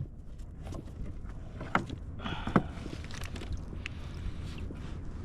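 A few sharp knocks and a short rustling scrape, the sound of handling on a fishing kayak, over a steady low rumble of wind and water.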